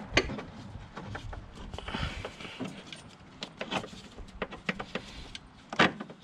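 Irregular metal clicks and knocks as the passenger-side engine mount bolt of a Mk1 VW Rabbit is worked loose and drawn out by hand, with one louder knock near the end.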